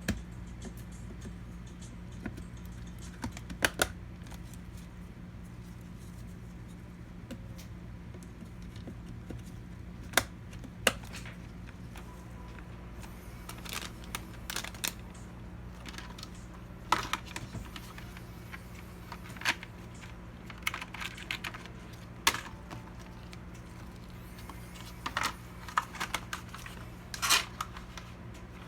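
Scattered sharp clicks and taps of PC hardware being handled, in irregular clusters, over a steady low hum.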